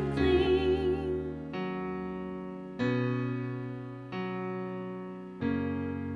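Electric piano playing slow, sustained chords: four chords struck about every 1.3 seconds, each left to ring and fade.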